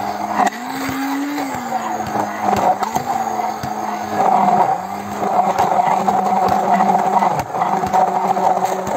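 Hand-held immersion blender running in a glass jar of homemade chocolate spread, a steady motor whine whose pitch rises and dips a few times as the load on the blade changes, with scattered short clicks. It is blending oil into milk, sugar and cocoa, which thickens the mixture.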